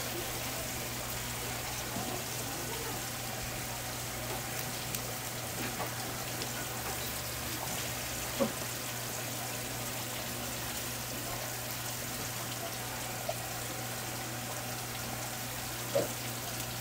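Steady hiss of running water over a low, even hum, with a couple of soft knocks as fresh squid is handled on a wooden board.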